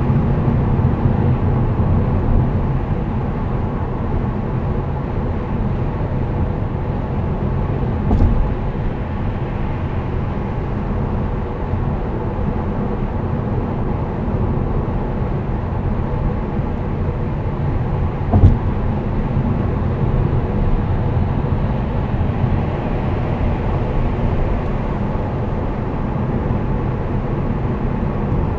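Steady road and engine noise heard from inside the cabin of a 2008 Saab 9-5 2.3t cruising at about 105 km/h on a motorway, mostly low tyre rumble. Two short thumps come through, about eight seconds in and again about eighteen seconds in.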